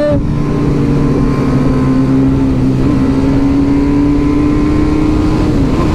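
TVS Apache RR 310 single-cylinder engine held at high revs at highway speed, with heavy wind rush. The engine note sags slowly and lifts slightly near the end.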